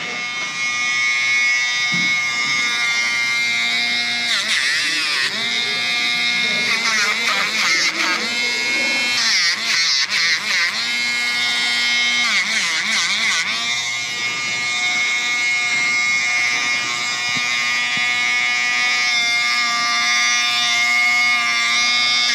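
Dremel rotary nail grinder running with a steady whine, its pitch wavering and dipping several times as it is pressed against a dog's nails to file them down.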